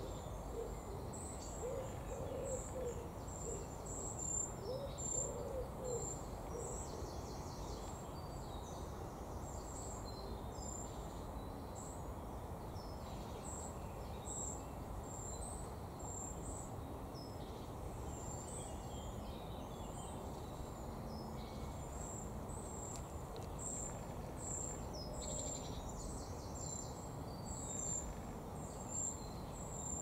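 Outdoor birdsong over a steady low background noise: a low-pitched bird call repeated several times in the first six seconds, and short, high, thin chirps repeating throughout.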